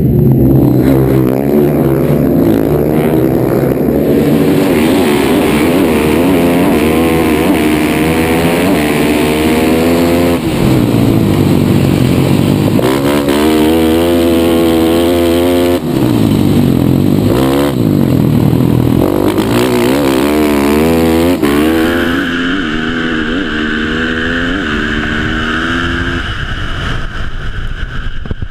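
Dirt-track racing motorcycles, their engines rising and falling in pitch again and again as riders open and close the throttle through the corners. A few seconds before the end the sound turns steadier and a little quieter, as a single engine close up.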